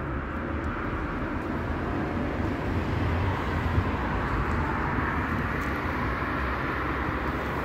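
Steady background rumble of road traffic, with no distinct events.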